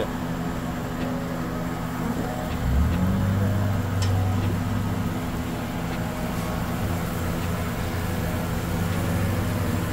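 Steady low motor or engine drone that swells and rises in pitch briefly about three seconds in, with a light hiss and a few faint clicks over it.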